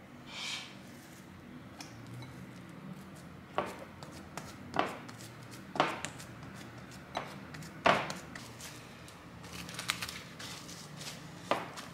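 Hands handling a glass mixing bowl of bread dough: a series of sharp knocks and taps on the glass, with a light rustle of cling film being stretched over the bowl near the end.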